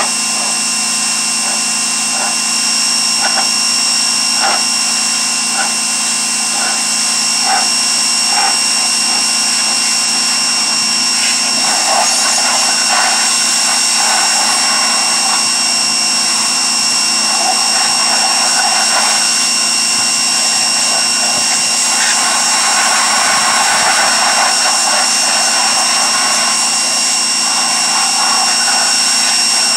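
Pressure washer running steadily with a high whine, its water jet spattering unevenly as it strikes the car's body and wheel.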